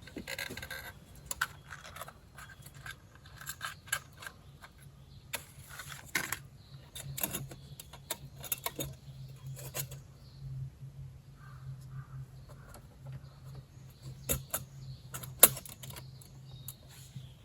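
Clicks and light metal clinks of a camping lantern being handled and lit, with a steady low hum from about five seconds in.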